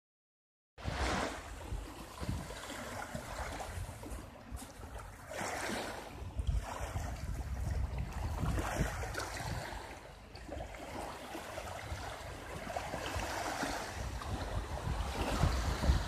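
Small lake waves lapping and washing over a pebble shore, swelling and fading every few seconds, starting about a second in. Gusts of wind buffet the microphone underneath with a low rumble.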